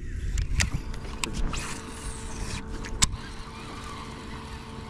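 Electric trolling motor humming steadily at one pitch, over a low rumble, with a few sharp clicks and knocks of rod and tackle handling.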